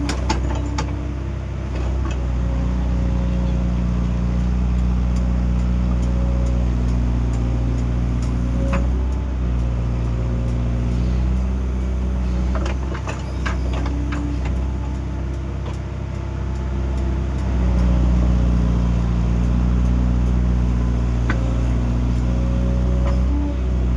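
Excavator's diesel engine running under work, its note dipping and rising a few times as the load changes, with scattered sharp metallic knocks, a cluster of them in the middle.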